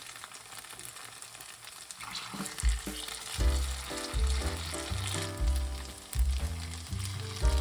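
Food sizzling as it fries in a pan. About two and a half seconds in, background music with a bass line comes in over the sizzling.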